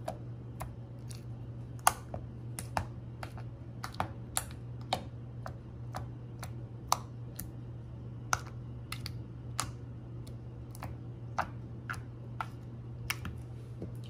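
Three-colour marker tip dabbed repeatedly into a blob of slime, each press giving a short sticky click, irregularly about two a second, over a steady low hum.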